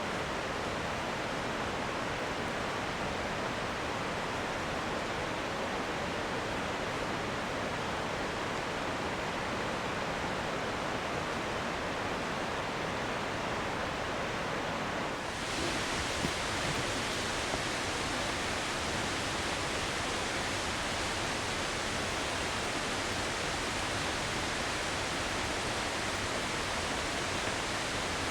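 Steady rushing roar of a waterfall, an even wash of falling water with no other sound on top. About fifteen seconds in it abruptly turns brighter and more hissing, and stays that way.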